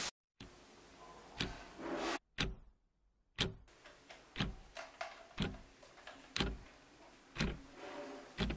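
Clock-like ticking, one sharp tick about every second, with soft swells of sound between some of the ticks.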